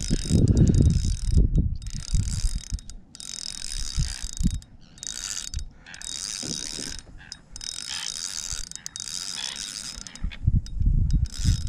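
Fishing reel being wound in short bouts, a high whirring that stops and starts, as a hooked fish is reeled in. A low rumble is loudest in the first second or so.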